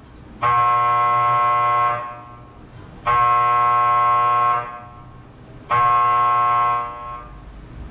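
A buzzer-like tone sounding three times, each about a second and a half long, with a steady pitch that starts and stops abruptly.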